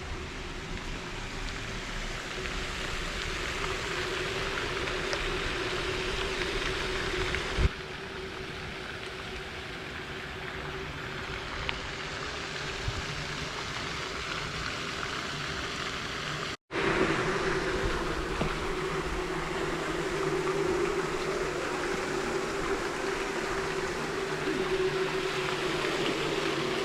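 Steady vehicle running noise with a low drone, like a car driving on a highway. It breaks off abruptly twice, about 8 s and 17 s in, the second time with a brief moment of silence.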